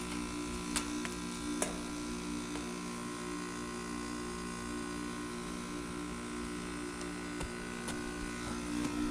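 Heat pump outdoor unit running in freezing weather, its compressor giving a steady hum with a slow pulsing throb, with a few faint ticks.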